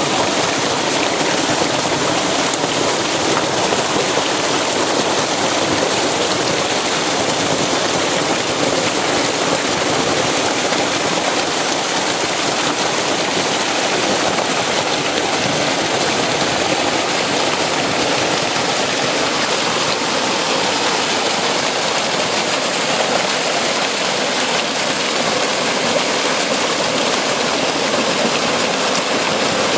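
Water of a gushing karst spring rushing out of the rock and splashing down a small rocky cascade, heard close up as a steady, unbroken rush.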